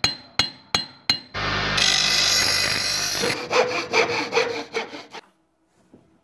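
Workshop tool sound effects for an intro. Four sharp, ringing strikes come about three a second. Then a steady loud rush of noise lasts about two seconds, followed by about five rhythmic sawing strokes that stop a little after five seconds in.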